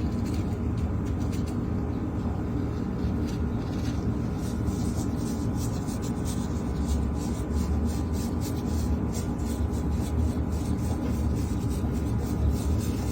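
Steady low hum or rumble that stays at the same level throughout, with faint light ticks now and then.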